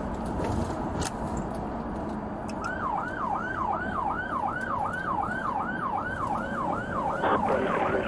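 Electronic emergency-vehicle siren in a fast yelp, sweeping up and down about two and a half times a second, starting about two and a half seconds in over a steady background noise; a second, lower siren tone joins near the end.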